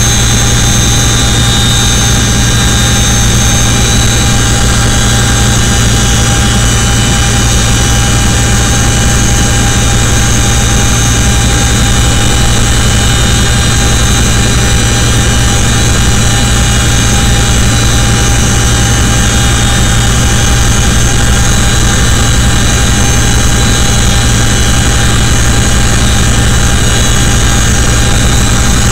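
Inside the cabin of a CH-47 Chinook helicopter: its twin turboshaft engines and rotor drive running very loud and steady, a constant turbine whine with several high tones held over a heavy low rumble.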